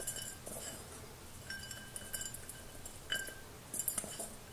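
A few faint clinks of fingers and meat against a stainless steel bowl, the bowl ringing briefly twice. The clinking against the metal is the sign of a small bone still left in the boiled squirrel meat.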